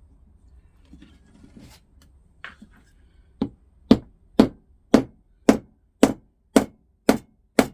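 Hammer blows on wood in a steady rhythm, about two a second, starting a few seconds in after a few light knocks and handling noises.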